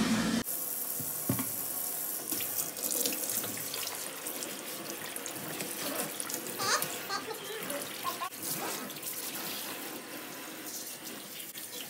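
Kitchen faucet's pull-down sprayer spraying water onto a dog's wet coat and into the sink, a steady hiss with small splashes.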